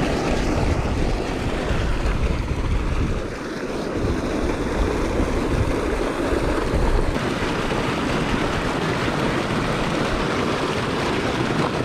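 Canal spillway outflow gushing into the canal: a steady rush of churning water, with wind buffeting the microphone.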